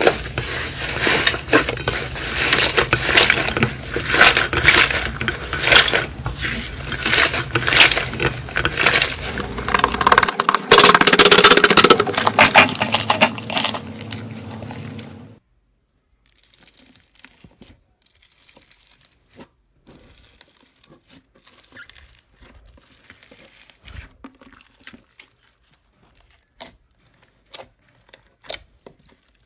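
Slime being pressed and stretched by hand, making dense crackling clicks and pops; about fifteen seconds in it cuts off abruptly to much quieter handling with scattered small clicks.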